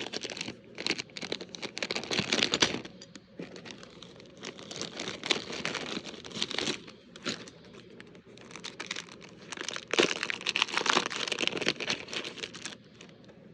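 Packaging crinkling and rustling as small items are handled and unwrapped, in three bouts of dense crackling: from about half a second in to nearly three seconds, again around five to seven seconds, and from about ten seconds to near the end.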